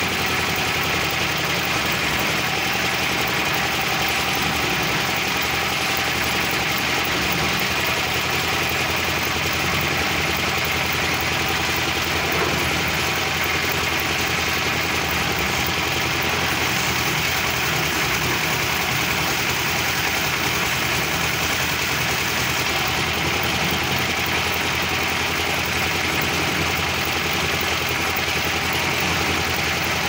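Tilting-drum concrete mixer's engine running steadily, with the drum turning as it is loaded with gravel and sand.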